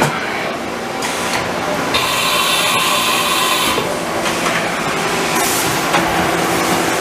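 Haas VF-2SS CNC vertical machining center running under power, with a steady whine and hiss. The noise shifts in character every second or two as the machine's motions change.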